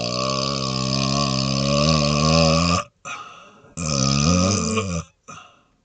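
A man's two long, deep belches. The first lasts nearly three seconds and wavers a little in pitch; after a short break a second belch of just over a second follows.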